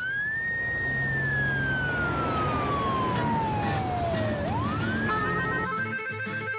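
Emergency vehicle siren wailing: one slow rise in pitch, a long fall, then a second rise. It cuts off abruptly near the end, and music begins.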